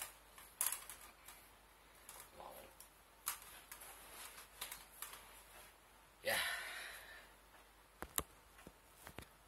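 Scattered light clicks and taps of hands handling a lightweight aluminium camera tripod, with a longer rustling swish about six seconds in and a pair of sharp clicks shortly after.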